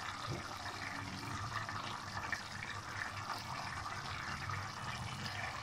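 Rice and chickpea pulao bubbling steadily in an open pot on the stove: the rice is at the simmer with its water almost absorbed, ready for the dum (steaming) stage.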